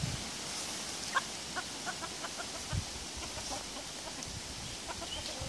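Domestic chickens clucking: a run of short clucks starting about a second in, with a few more near the end.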